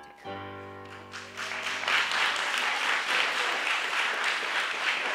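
A song's accompaniment ends on a held chord that dies away, then audience applause breaks out about a second and a half in and goes on, loud and steady.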